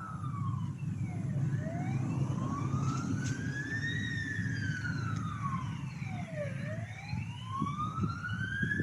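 A siren wailing, its pitch slowly rising and falling about every five seconds, over a steady low rumble.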